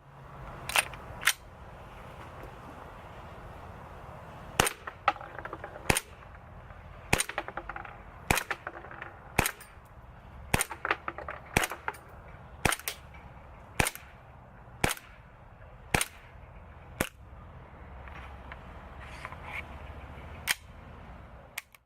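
ASG CZ 75 SP-01 Shadow gas blowback airsoft pistol firing single shots, each a sharp crack of gas release and slide cycling. There are about fifteen shots, mostly about a second apart, with a few fainter clicks near the end.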